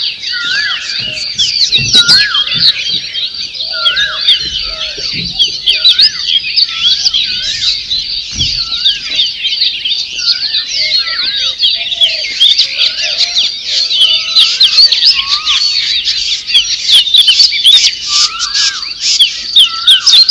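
Many birds chirping and singing at once: a dense chorus of quick, high chirps and trills, with one lower warbling note repeated about once a second.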